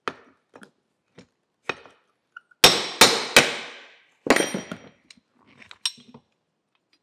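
Ball-peen hammer striking a steel pin punch to drive out the pin that holds the roller in an old boat-trailer winch. A few light taps come first, then four hard, ringing blows around the middle, and light metal clinks near the end.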